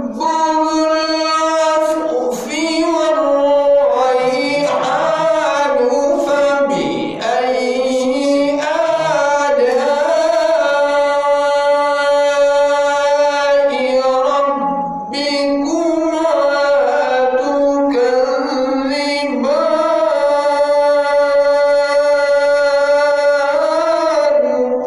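A man reciting the Quran (tilawat) in a melodic chanting voice, holding long drawn-out notes that bend slowly in pitch, with brief pauses for breath between phrases.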